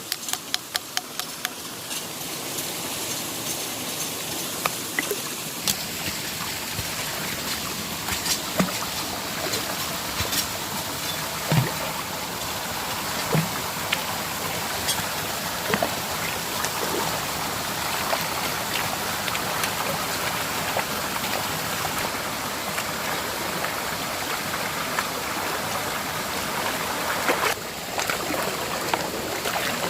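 Steady rush of flowing stream water, with scattered sharp knocks and clicks. The sound briefly drops near the end.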